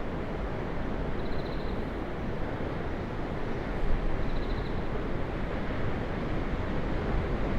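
Ocean surf making a steady rushing wash, with two short high trills about three seconds apart.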